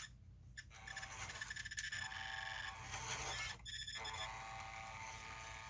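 The small electric drive motor and gearbox of a JJRC Q65 toy RC crawler whining faintly in short spurts of throttle, stopping briefly about three times.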